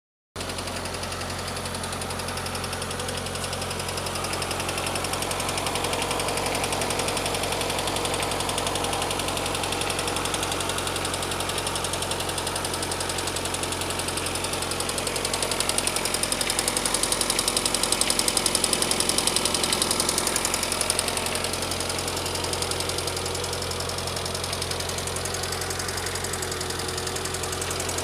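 VAZ-21124 1.6-litre 16-valve four-cylinder engine idling steadily with a rapid, even ticking knock from the hydraulic lifters (tappets). The knock is the sign that the lifters are not holding oil pressure or are worn.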